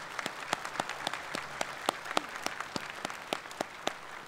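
Audience applauding, with one clapper's sharp claps standing out at a steady three to four a second over the general clapping.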